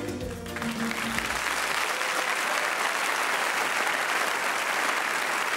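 Studio audience applauding, a dense steady clapping that swells as the salsa music ends about a second in.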